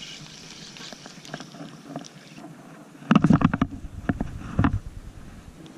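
Rough rumbling and rubbing against a chest-mounted camera as the angler swings his body and rod, in a loud cluster about three seconds in and another burst about a second and a half later.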